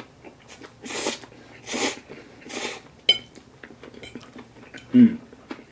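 Spaghetti noodles slurped up three times in quick succession, then a sharp clink of a fork on a ceramic plate about three seconds in. A brief low vocal sound from the eater comes near the end.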